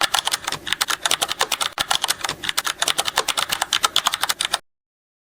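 A rapid run of light key clicks like typing, about ten a second, that stops abruptly about four and a half seconds in.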